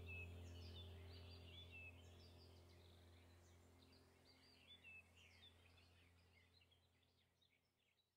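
Relaxing background track of birdsong, many short chirps over a low steady drone, fading out. The drone's higher held notes die away about halfway through, and the chirps grow fainter to near silence by the end.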